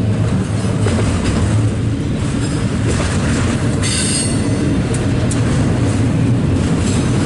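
Canadian Pacific auto-rack freight train rolling past: a steady rumble of wheels on rail with scattered clicks. About four seconds in comes a brief high screech of wheels squealing.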